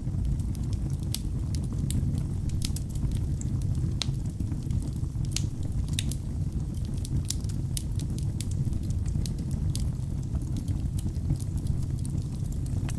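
Log fire burning in a fireplace: a steady low rumble of flames with frequent, irregular sharp crackles and pops from the burning wood.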